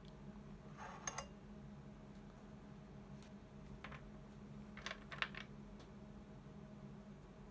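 Light clicks and small clatter of electrolytic capacitors being picked up and set down on a workbench: a couple of clicks about a second in and a short cluster about five seconds in, over a faint steady low hum.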